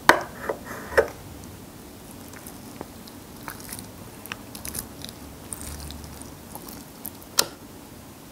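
Wooden chopsticks clicking on a plate and pulling apart braised stingray, with small sticky, wet tearing sounds. A few sharp clicks stand out: one at the start, one about a second in and a loud one near the end.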